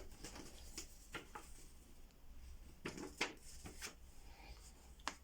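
Faint, scattered rustles and light clicks of a paper letter being handled, a few short handling sounds spread over a few seconds of quiet room tone.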